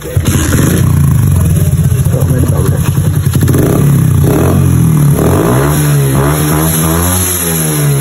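Motorcycle engine running through a newly fitted aftermarket exhaust, idling with a fast pulsing beat, then revved up and down in repeated quick throttle blips from about halfway through.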